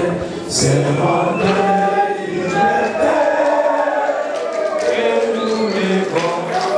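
A group of men singing the national anthem in unison, one voice leading through a microphone, with held, sustained notes.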